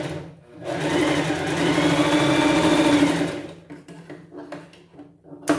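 Sewing machine running steadily as it stitches a seam, easing off briefly about half a second in and stopping a little after three seconds. A few short clicks and knocks follow near the end.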